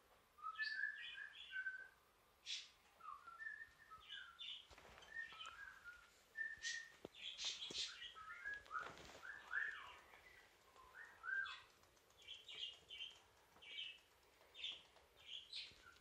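Pet budgerigar (budgie) chattering in quick strings of short chirps, with brief pauses between strings.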